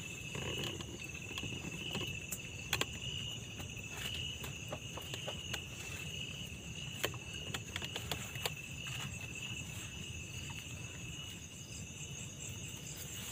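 Crickets and other insects chirping steadily in two high, finely pulsing bands, with scattered sharp clicks of footsteps.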